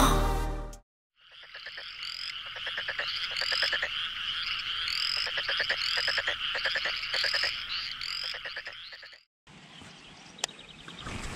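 A chorus of frogs calling: many overlapping, rapidly pulsed croaking trills that run for about eight seconds and then cut off abruptly. Music fades out just before the chorus begins, and faint outdoor ambience with a couple of clicks follows it.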